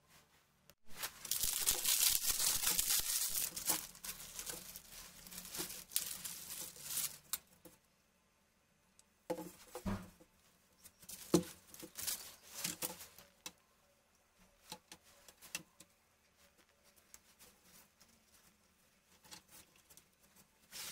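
Clear plastic bag crinkling and tearing as it is pulled off the softbox's mounting ring, a dense crackle lasting about six seconds. After a pause come several sharp clicks and knocks of hard plastic and metal parts as the flash bracket is handled against the ring, thinning to a few faint clicks.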